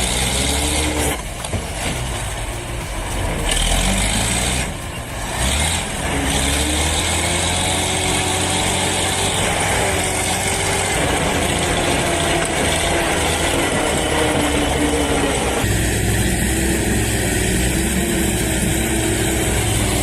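Heavy diesel truck engines running, their pitch rising and falling, with abrupt changes in the sound in the first few seconds as the footage cuts between vehicles.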